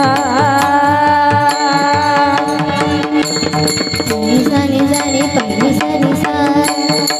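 A Marathi kirtan tune sung by a girl's voice, with one long wavering note held near the start. It is sung over a steady sustained drone with regular hand-drum strokes.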